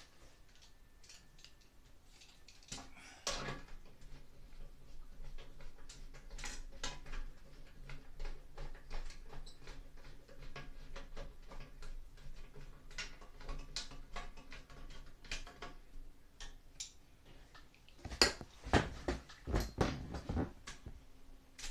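Hands working inside a Broan 655 bathroom fan housing: scattered small clicks and knocks of parts being handled, with a cluster of louder knocks near the end.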